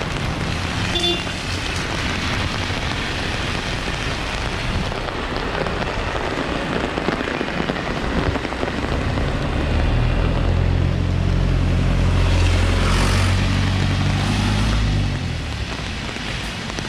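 Steady rain falling on the street and pavement. From about ten seconds in to about fifteen, a passing vehicle's low engine sound rises over the rain, with a hiss of tyres on the wet road near its loudest point.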